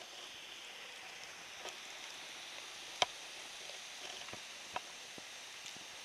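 Falling wet snow: a steady faint hiss with scattered sharp ticks of flakes and drops striking close by, the loudest tick about three seconds in.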